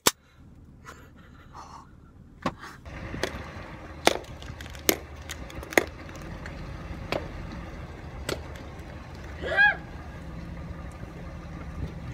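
A series of sharp cracks, roughly one a second, as something is struck against asphalt pavement.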